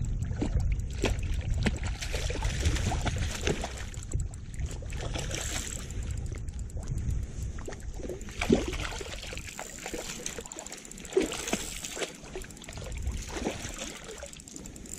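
Hooked fish thrashing at the water's surface: irregular splashes and sloshing water, with a low rumble of wind on the microphone that drops away about two thirds of the way through.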